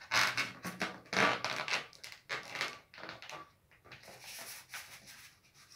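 Long red latex modelling balloon rubbing and squeaking under the hands as its two ends are pulled together and knotted, in irregular bursts that are strongest over the first three seconds and fainter after.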